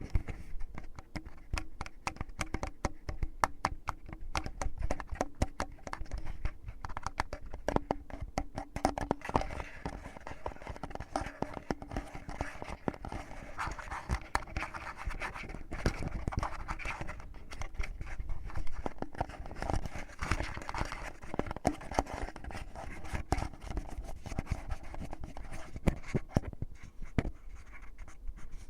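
Fingertips rubbing and scratching in the ear of a binaural ASMR microphone: a dense, continuous crackle of close-up scratches and small clicks.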